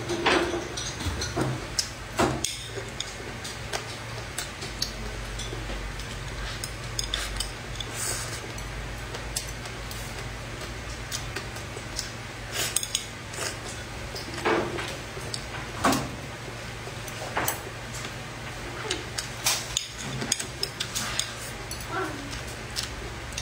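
Eating sounds: chopsticks clicking against a plate and chewing, heard as scattered short clicks and soft mouth noises over a steady low hum.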